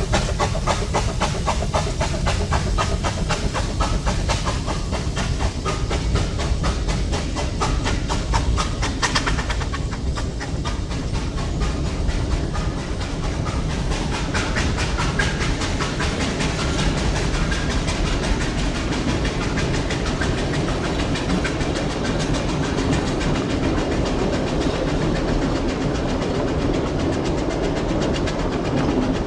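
Two Hunslet narrow-gauge steam locomotives double-heading a train pass, their exhaust beats coming fast and regular with hissing steam. After about ten seconds the beats fade and the carriages roll by in a steady rumble, their wheels clacking over the rail joints.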